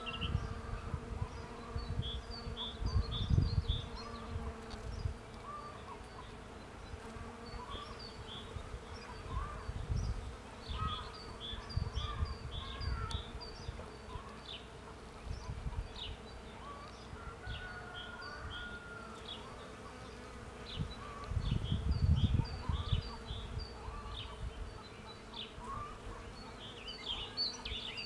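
Honeybees buzzing at cherry blossoms, a steady hum, with occasional low rumbles of wind on the microphone.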